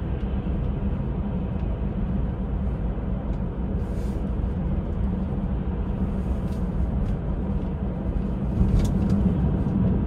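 Steady low road and tyre noise inside the cabin of an electric Tesla Model 3, driving at about 65 km/h on a snow-covered road, with a few faint ticks. It gets a little louder near the end.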